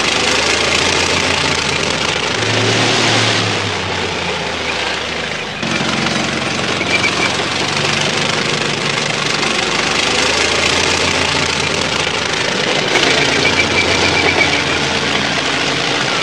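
Column of T-72 tanks driving past: diesel engines running, with the noise of steel tracks on the snowy ground and short runs of rapid ticking.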